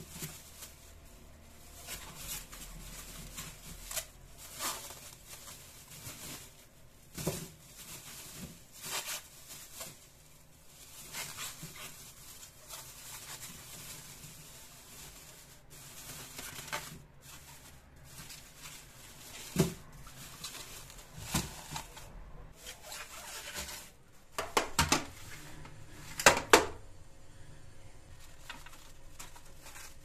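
Clear plastic food bag rustling and crinkling as dried corn cobs are handled and slid into it. Scattered sharper clacks of the hard cobs against the stone countertop come through, loudest in a cluster near the end.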